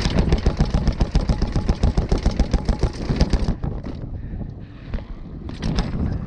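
Mountain bike clattering and rattling fast over rough ground for about three and a half seconds, then rolling more quietly with a few knocks.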